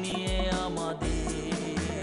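Instrumental passage of a TV theme tune: held instrumental notes over a bass line, with no singing.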